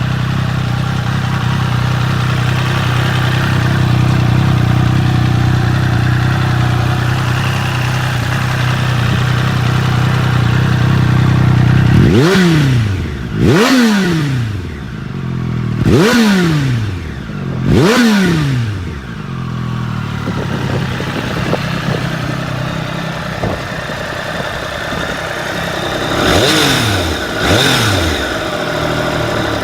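Triumph Daytona 765 Moto2's three-cylinder engine idling steadily, then blipped four times in quick succession partway through, each rev shooting up and dropping straight back to idle. After more idling it is blipped twice more near the end.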